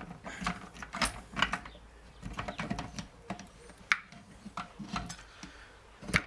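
Steel gears and shafts of a Peugeot BE4 gearbox's gear cluster clicking and knocking against each other and the gearbox casing as the assembly is worked loose and lifted out. Irregular metallic clicks, with the sharpest knocks about four seconds in and near the end.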